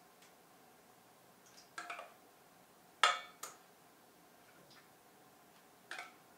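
A metal spoon clinking against a stainless steel mixing bowl as beaten egg is scooped out, four or five sharp clinks that each ring briefly, the loudest about three seconds in.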